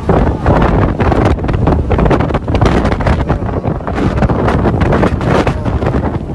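Storm wind gusting hard across the microphone, a loud rushing rumble that eases off near the end.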